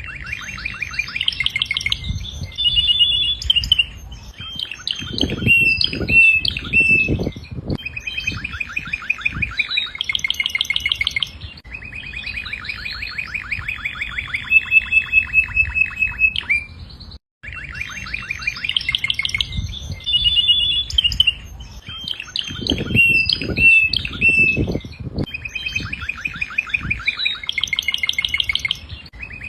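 Domestic canary singing: rapid trills and rolls in phrases a few seconds long, with a brief break about 17 seconds in after which the same song sequence starts over. A few deeper knocking pulses come in the middle of each run.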